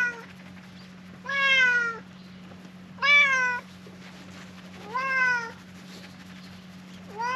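Domestic cat meowing over and over, a short meow every one and a half to two seconds, each rising and then dipping slightly in pitch.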